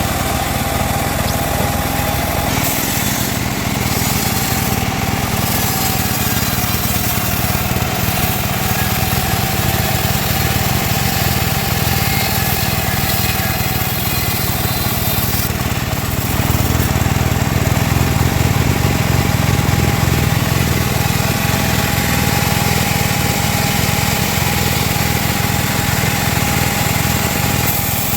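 Band saw running continuously: a steady, loud machine drone with a thin steady whine over it, heavier in the low end for several seconds past the middle.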